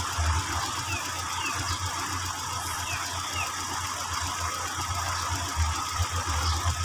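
Daihatsu Zebra Espass 1.3 carbureted engine idling roughly, with an uneven low pulsing. The mechanic says one spark plug seems dead and the fuel and carburetor are dirty, so the engine is not running normally.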